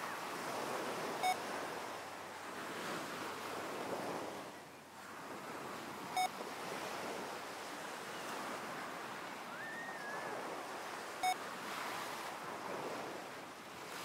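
Recorded ocean waves surging and easing on a shore, overlaid with three short electronic beeps about five seconds apart. The beeps pace heart-coherence breathing at six breaths a minute, each one marking the switch between breathing in and breathing out.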